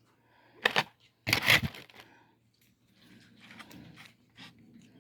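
Bites into crispy fried chicken: two short, loud crunches in the first two seconds, the second the louder and longer, then quieter crackling of chewing.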